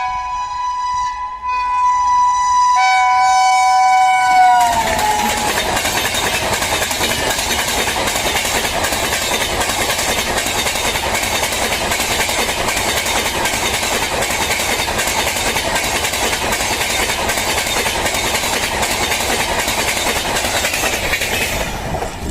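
WAP7 electric locomotive's two-tone horn sounding, its pitch dropping just before it cuts off about four and a half seconds in as the engine passes. Then the loud, continuous rush of the express's coaches at about 110 km/h, with a steady run of wheel clicks over the rail joints, fading near the end.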